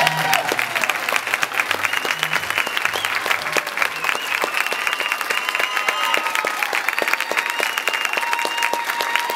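A roomful of people applauding, steady and dense, with calls and whistles on top. The last low notes of the dance music fade out in the first few seconds.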